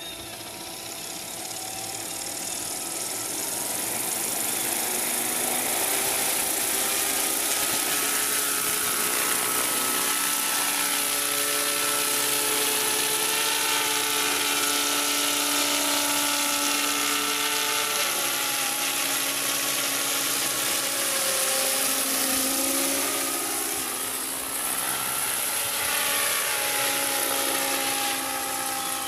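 Electric 450-size fixed-pitch RC helicopter spooling up and then flying. Its motor and rotor whine grows louder over the first few seconds, then wavers up and down in pitch as the throttle changes, over a high hiss.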